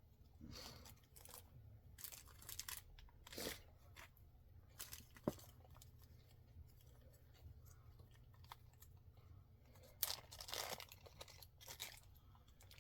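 Faint rustling, crinkling and tearing of packaging as items are unwrapped by hand, in short scattered spells with a sharp click about five seconds in.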